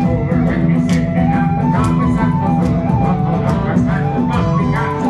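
Irish folk band playing an instrumental passage of a slip jig. A fiddle and tin whistle carry a fast, running melody over strummed guitars, bass guitar and a regular bodhrán beat.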